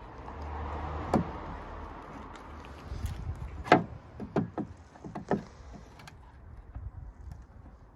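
Plastic rear light cluster of a car being worked out of the body: a rubbing scrape with a click about a second in, then a handful of sharp plastic clicks and knocks in the middle, the loudest near four seconds in.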